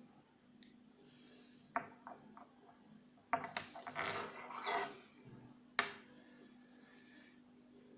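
A few sharp clicks, then a short burst of clatter from small hard parts being handled, and one last loud click, over a steady low hum.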